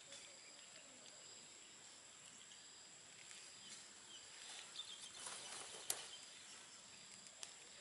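Near silence: faint outdoor ambience with a steady high hiss, soft rustling in the grass around the middle and a sharp click about six seconds in.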